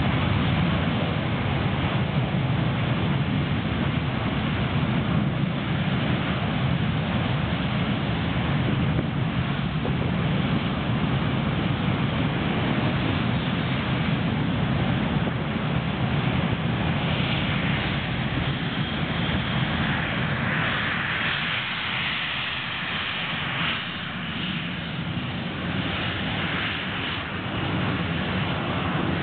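BAE Hawk T1 jet trainers' Adour turbofan engines running on the ground, a steady jet noise with a deep rumble underneath. A higher-pitched whine grows stronger a little past halfway, then eases off near the end.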